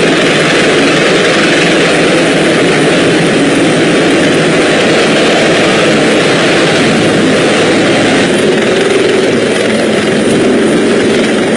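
Helicopter hovering low overhead: loud, steady rotor and engine noise mixed with the rush of its downwash.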